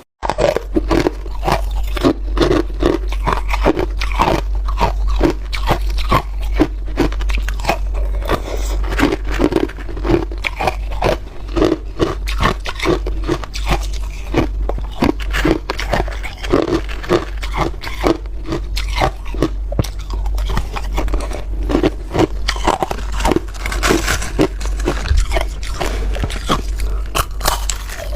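Ice being bitten and chewed, close-miked: dense, irregular crunching and cracking of hard ice between the teeth, several crunches a second.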